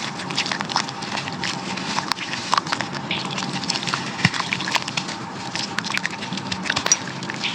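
Crunchy brown sand being crumbled by hand in a clay pot: a steady run of irregular gritty crackles and crunches.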